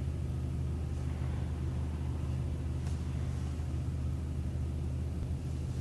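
City transit bus heard from inside the cabin: a steady, even low engine drone.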